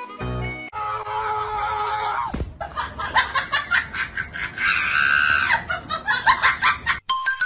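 A thud, then people laughing hard in quick bursts, with a held shriek in the middle.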